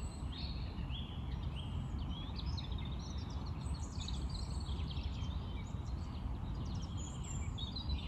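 Small birds chirping and twittering over a steady low background rumble, with a single sharp click at the very end.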